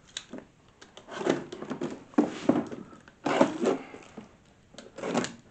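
Cardboard box being cut open with a small blade: several short scraping, rustling strokes as the knife runs through the packing tape and the cardboard flaps shift.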